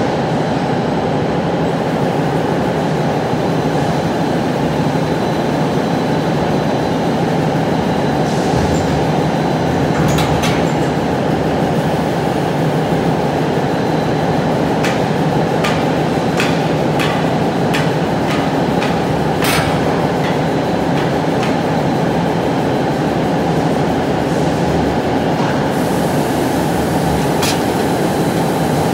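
Steady loud running noise of concrete pile production-line machinery, with scattered sharp metallic clicks and knocks, most of them in the middle and a few near the end.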